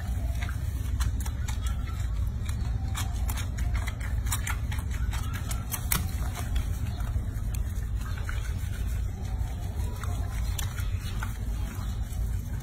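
Water splashing and sloshing in a sink as hands lather and rinse a wet baby monkey, many short splashy ticks over a steady low rumble.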